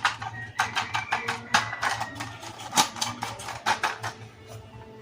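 Rapid, irregular clicking and tapping of small hard plastic parts being handled, several sharp clicks a second.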